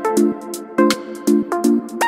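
Upbeat electronic background music with a steady, quick beat, chord notes and a bright melody.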